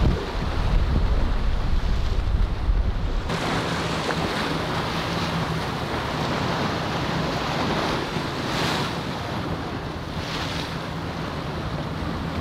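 Wind buffeting the microphone over rushing inlet waves. About three seconds in the sound changes abruptly to a steady wash of surf with a low boat-engine drone under it, and two brief surges of splashing spray near the end.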